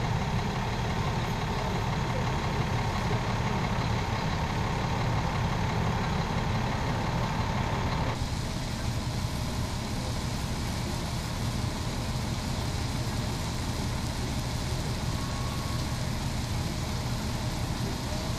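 Fire engine's diesel engine idling, a steady low rumble. About eight seconds in the sound changes abruptly and carries on as a steady, slightly thinner engine hum.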